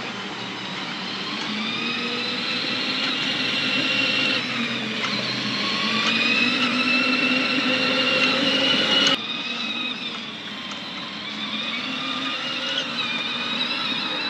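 The electric drive motors and gearboxes of a SopBost 24V kids' ride-on UTV whining as it drives, the pitch rising slowly as it picks up speed. The sound drops off suddenly about nine seconds in, then goes on more quietly.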